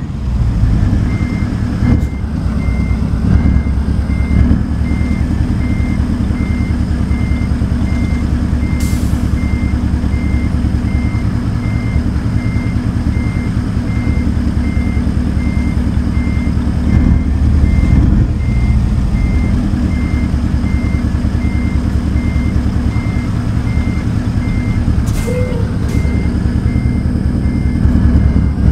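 Heavy truck's diesel engine running steadily while a backup alarm beeps at an even pace, about twice a second, starting about a second in.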